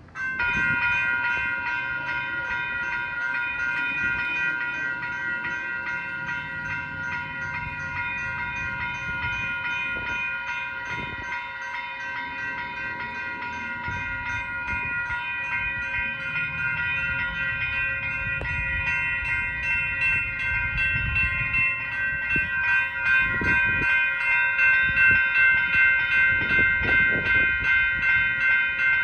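Railroad crossing warning bell starting abruptly as the signals activate, then ringing on in a rapid, steady, even ding. It grows louder and more pronounced in the last several seconds.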